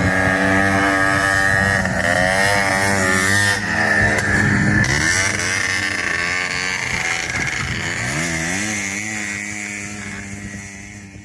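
Off-road dune buggy engines running and revving, their pitch rising and falling, fading out near the end.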